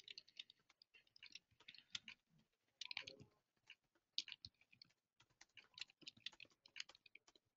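Faint typing on a computer keyboard: irregular key clicks in short runs with brief pauses.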